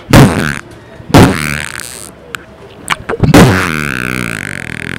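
Men shouting in loud bursts, the last cry drawn out for over a second, with a couple of short clicks between the shouts.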